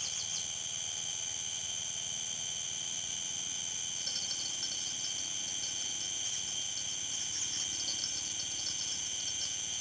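Night insect chorus: steady high-pitched trilling from several insects at once, with a rapid chirping pattern joining about four seconds in.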